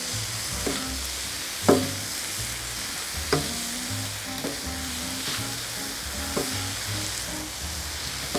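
Mushrooms sizzling as they fry in olive oil in a pan, being stirred, with a steady hiss.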